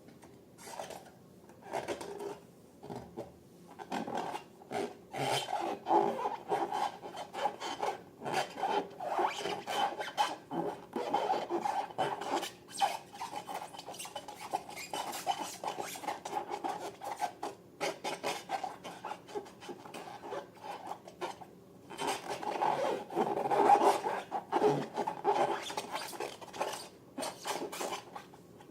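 Irregular rubbing and scraping in quick short strokes, louder in two stretches, around a quarter of the way in and again near the end.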